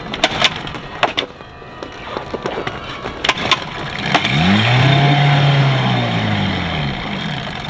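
Outboard dinghy engine firing briefly after a few knocks and clicks. It runs for about three seconds, its pitch rising and then falling as it dies: a near start after sitting all winter.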